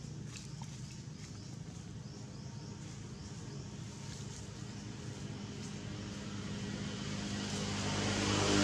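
A motor vehicle's engine running, growing steadily louder toward the end as it draws nearer.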